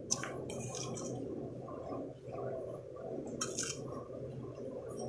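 Granulated sugar tipped into a glass mixing bowl: faint crackly ticks and rustles near the start and again about three and a half seconds in, over a steady low room hum.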